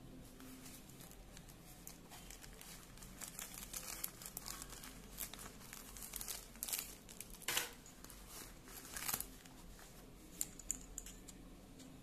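Clear plastic packaging bags crinkling and a faux-leather drawstring pouch rustling as hands pull the contents out of the pouch. Faint, irregular crackles, with a few louder crinkles in the middle.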